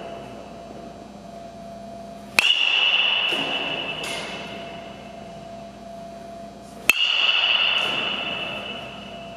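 Baseball bat striking tossed balls twice, about four and a half seconds apart, each a sharp crack followed by a high ringing ping that fades over a second or so.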